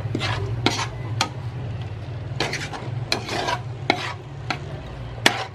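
A spoon stirring and scraping chopped vegetables and egg around a frying pan in irregular strokes about once or twice a second, while the food sizzles in the pan.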